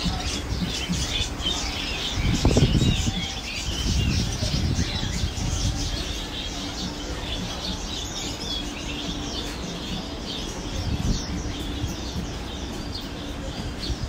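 Many caged songbirds chirping and twittering at once, their short high calls overlapping constantly. Low thuds and rumble sit beneath, loudest about two and a half seconds in.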